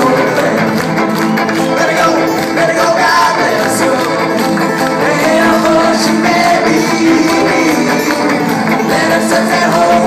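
Live string band playing: guitars, fiddle and upright bass with singing over them.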